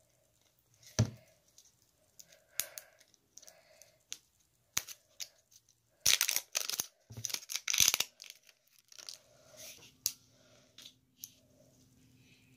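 Hands working open the plastic cap and seal of a tube of hand cream: scattered clicks and scraping, with a loud burst of tearing and crinkling about six to eight seconds in.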